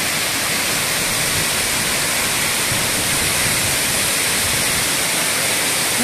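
The 40-metre Makhuntseti waterfall pouring, a steady, even rush of falling water.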